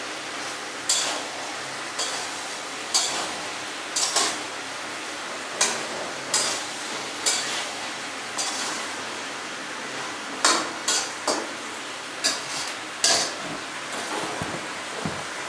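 A stirring utensil scrapes and knocks against a metal kadai as vegetables are stirred, about one stroke a second, with a quicker run of strokes about two thirds of the way through. A steady hiss of frying runs underneath.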